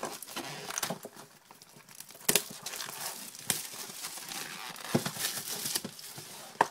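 The wrapper and cardboard of a sealed box of hockey trading cards crinkling and tearing as it is opened by hand. A few sharp snaps stand out, the loudest about two seconds in.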